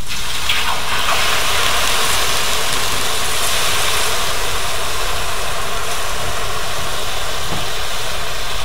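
Water poured in a steady stream into a hot wok, splashing onto the fried meat and hissing as it hits the hot metal and turns to steam.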